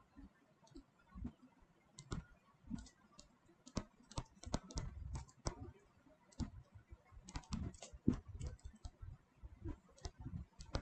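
Writing on a board or tablet: a run of irregular light clicks and taps, several a second and busiest in the middle, with some soft low knocks.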